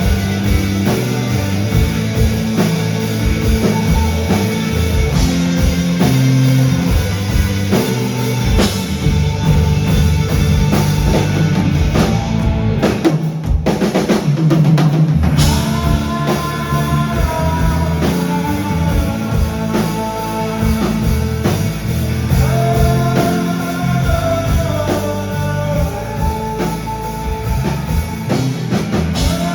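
Live rock band playing loud: drum kit, bass and electric guitars, with melodic guitar lines over the top. The bass and drums briefly drop out about 13 seconds in, then come back.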